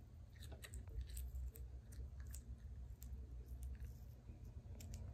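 Faint chewing close to the microphone: scattered small clicks and mouth noises over a low steady rumble.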